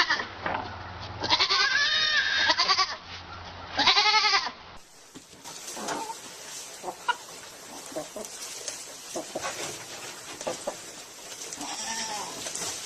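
Pygmy goat bleating loudly: two long bleats that rise and fall in pitch within the first five seconds. After a sudden cut there are only faint scattered knocks and rustling.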